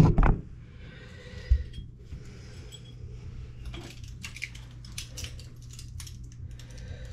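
A knock near the start and a soft thump about a second and a half in, then a run of small sharp metallic clicks and scrapes from a pocketknife and a brass faucet aerator being handled, over a steady low hum.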